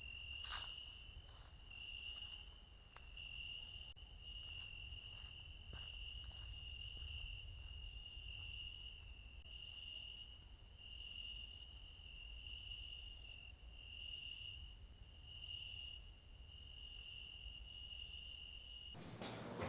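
Crickets chirping, a faint steady pulsing chirp about once a second that cuts off suddenly near the end: the stock cricket sound effect used for an awkward silence.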